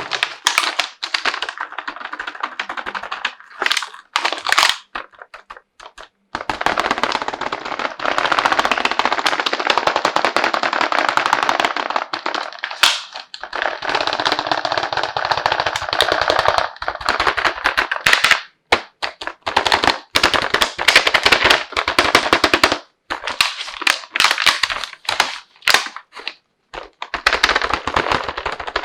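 Plastic toy packaging being handled and unwrapped: dense, rapid crackling and rustling in long stretches broken by short pauses.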